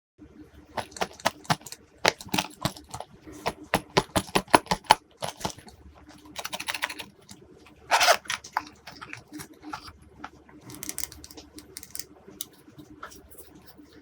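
Glossy slime being pressed and worked by hand, giving irregular sticky clicks and pops, several a second at times, with a couple of longer crackly squishes in the middle.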